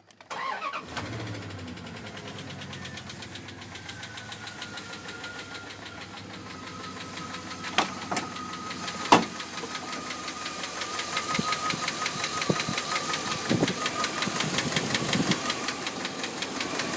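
Engine of a high-mileage 2001 Dodge Ram 1500 running with a rapid, regular clicking that the owner cannot identify, with a few louder knocks about halfway through.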